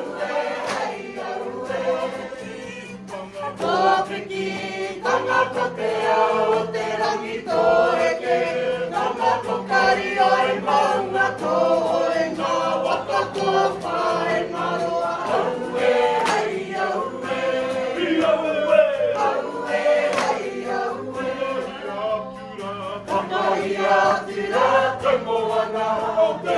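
A group of mostly women's voices singing a Māori action song (waiata-ā-ringa) together in unison, in a steady rhythm.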